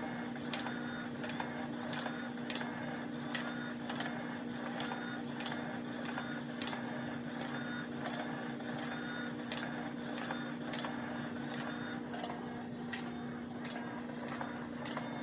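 Battery-powered pop-up cat toy running: a steady motor hum with regular mechanical clicks, about three every two seconds, as its mechanism cycles.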